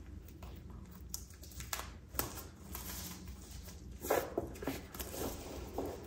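Keyboard's cardboard box and its packing being opened and handled by hand: scattered taps, scrapes and rustles, busiest about four to five and a half seconds in.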